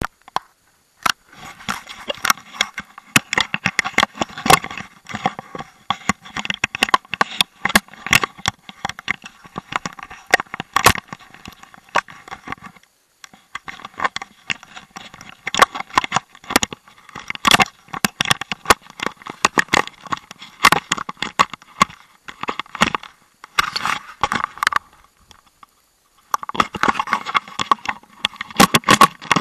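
Skis scraping and hissing through snow on a descent, with frequent sharp clicks and crackles, as heard from the skier's own camera. The sound drops out briefly about halfway through and again a few seconds before the end.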